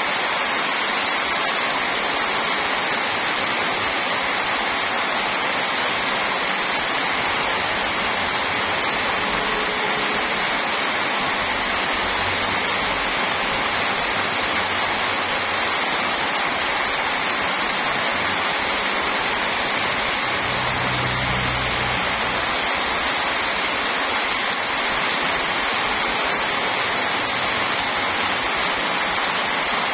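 Heavy rain pouring steadily onto a road and the ground, an even hiss. A low rumble swells twice, near the middle as a truck drives past on the wet road, and again about two-thirds in.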